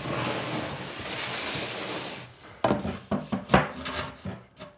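A cabinet carcass made of board being turned over on a workbench: about two seconds of rubbing as it slides across the table top, then a few sharp wooden knocks as it is set down.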